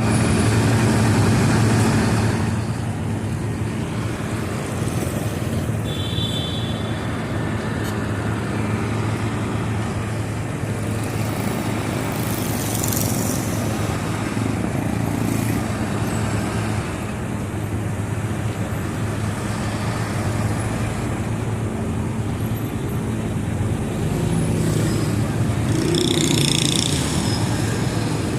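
Road traffic with a steady drone of engines, loudest in the first two seconds. A brief high squeal comes about six seconds in, a hiss around twelve seconds, and a louder passing vehicle near the end.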